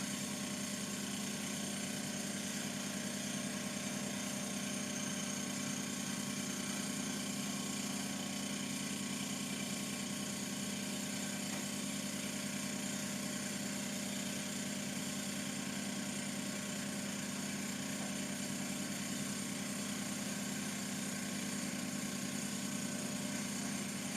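TAIG benchtop milling machine running steadily, a constant even hum with faint higher steady tones over it and no change in speed.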